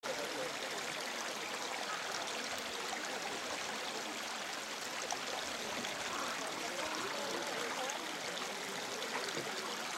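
Steady sound of running water.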